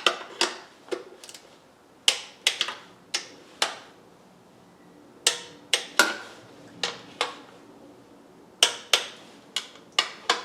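Hand torque wrench clicking sharply in short uneven groups with pauses between, as the intake plenum bolts are brought to 70 inch-pounds in sequence.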